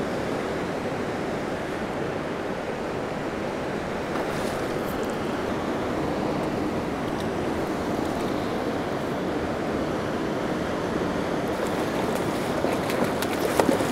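Steady rush of a fast-flowing river, an even hiss of moving water at the rocky bank.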